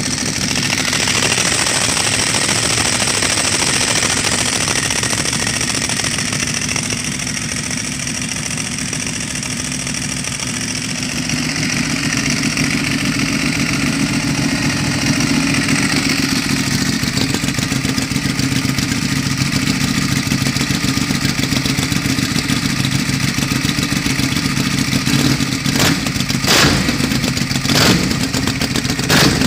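Ducati 1198SP's 1198 cc L-twin running steadily at idle through a Termignoni carbon slip-on exhaust, its note filling out about eleven seconds in. Near the end come a few short, sharp bursts louder than the idle.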